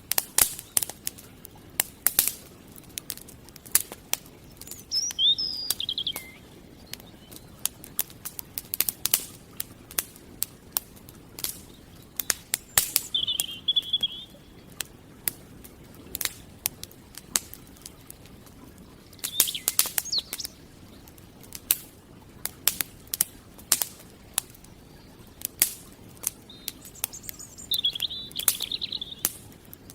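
Campfire crackling with irregular sharp pops. A bird chirps in three short bouts: about five seconds in, around thirteen seconds, and near the end.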